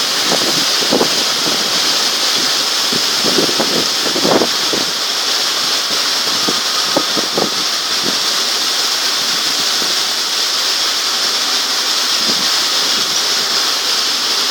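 Very heavy rain pouring down with a loud, steady hiss. Scattered short low thumps break through it in the first half.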